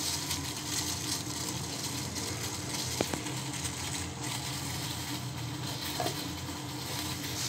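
Water boiling in a steel pot with mint leaves and ginger pieces, a steady bubbling hiss, with one faint click about three seconds in.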